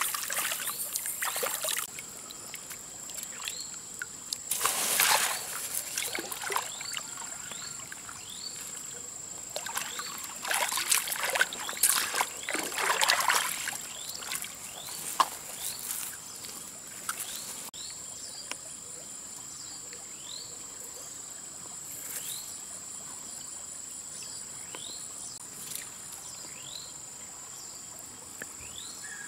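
Shallow muddy water splashing in bursts as hands grab for fish, busiest in the first half. A steady high insect drone runs underneath throughout.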